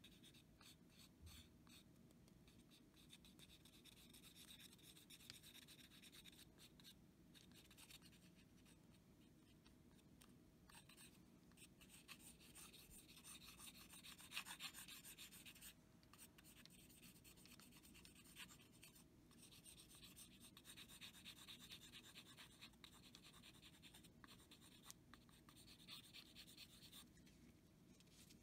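Faint, irregular scratching and rubbing as glue is worked onto a wooden knife handle: a plastic glue bottle's nozzle scraping over the wood and the handle shifting on parchment paper, over a faint steady hum.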